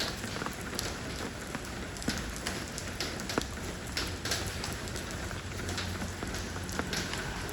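Steady rain falling on stepping stones, a constant wash with many sharp, irregular drop splats and patters on the stone.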